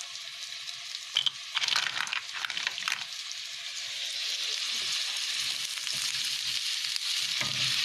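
Sliced red onions frying in hot cooking oil in a pan: a steady sizzle that grows louder from about three seconds in. A few short knocks and clicks come in the first three seconds.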